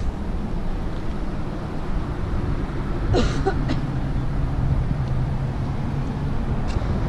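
Steady rushing roar of Bear Creek Falls, with a low engine hum from a vehicle building beneath it. A brief high squeak comes about three seconds in.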